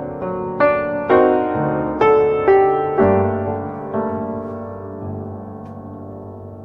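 Slow instrumental piano passage: single notes and chords struck about every half second. The last ones come about four seconds in and are left to ring out and fade.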